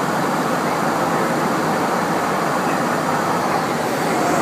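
Steady rushing noise inside a jet aircraft's cockpit at cruise altitude: an even hiss of air streaming over the flight deck, with no breaks or changes.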